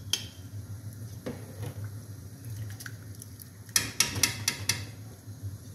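Metal slotted skimmer clinking against a steel pot and a ceramic plate while parboiled rice is scooped out of its water, a few single clinks and then a quick run of about six about four seconds in.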